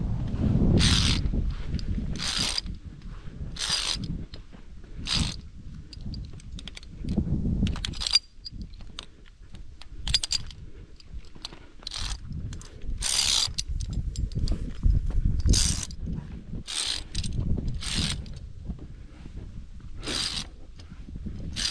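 Via ferrata lanyard carabiners sliding and scraping along the steel safety cable: a short metallic scrape every second or two as the climber moves along, over a low rumble of handling and movement.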